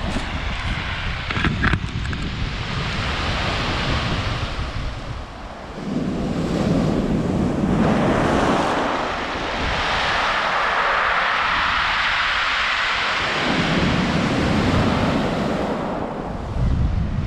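Sea waves breaking and washing up and back over a shingle beach, with a long hissing wash starting about six seconds in. Wind buffets the microphone, rumbling low at the start and near the end.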